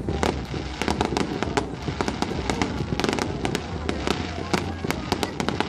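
Fireworks display: dense crackling and popping from bursting shells, many sharp cracks each second, over a steady low rumble.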